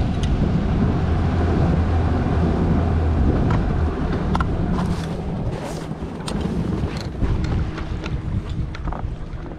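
Bass boat's outboard motor running the boat at speed, with wind buffeting the microphone and water rushing along the hull. About three and a half seconds in, the engine's low drone falls away and the overall level drops as the boat eases off.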